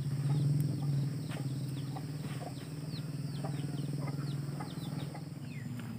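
Chickens peeping: a rapid scatter of short, high, falling chirps over a steady low hum.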